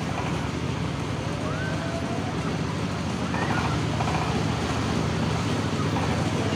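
Steady low rumble of night-market ambience heard from a turning carousel, growing slightly louder about halfway through. A few faint gliding whistle-like tones and distant voices sit over it.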